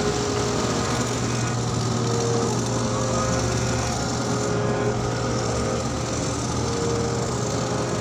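Crawler bulldozer's diesel engine running steadily with a constant low hum.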